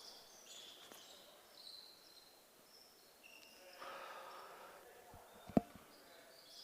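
Faint basketball gym sounds: sneakers squeaking on the hardwood court, with one sharp basketball bounce about five and a half seconds in and a faint murmur of voices.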